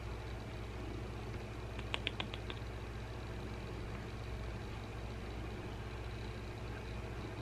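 Domestic cat purring steadily, a low rumble close to the microphone. About two seconds in there is a quick run of about six small clicks.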